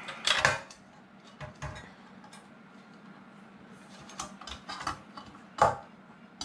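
Ceiling fan light kit parts handled and pushed into place while wires are tucked into the housing: scattered clicks, taps and knocks, loudest about half a second in and again near the end.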